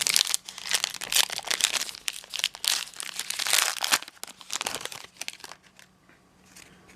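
Wrapper of a trading card pack crinkling and tearing as it is ripped open, a dense run of rustles that dies down about five seconds in.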